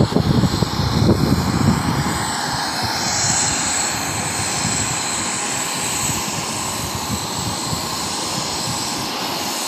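Business jet passing close by, its jet engines making a steady rushing noise with a strong high hiss that sets in about three seconds in.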